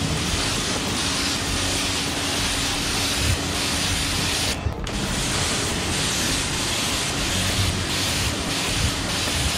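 Pressure washer spray hissing steadily as the jet rinses a spray-in bedliner in a truck bed, with a brief break in the spray a little under halfway through.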